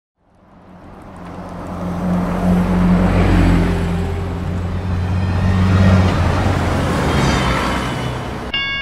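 A bus's engine runs as the bus drives past, fading in, peaking midway and easing off. Just at the end, a level-crossing warning bell starts ringing.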